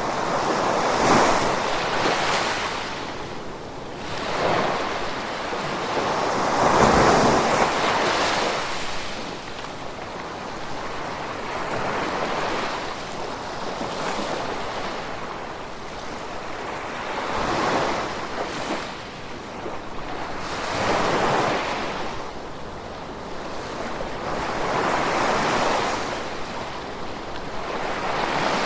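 Gentle ocean waves washing onto a shore, the surf noise swelling and fading every few seconds.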